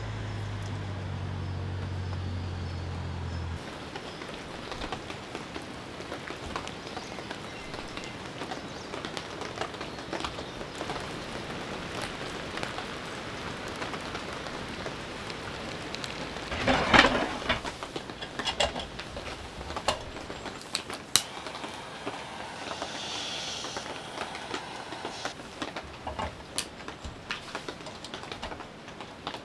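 Heavy rain pattering on a tent, countless drops ticking irregularly on the fabric, with a louder clatter about 17 seconds in. A low hum runs under it for the first few seconds and then stops.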